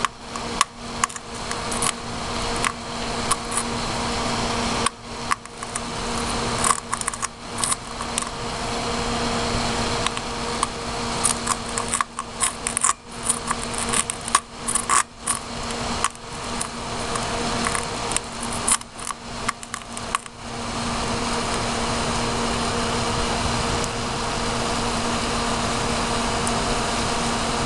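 Electric arc from a 13.8 V, 23 A power-supply lead held against a motherboard's northbridge chip: a crackling sizzle that keeps cutting out and restarting as the contact makes and breaks, settling into a steadier hiss about two-thirds of the way in as the chip burns. A steady low hum runs underneath.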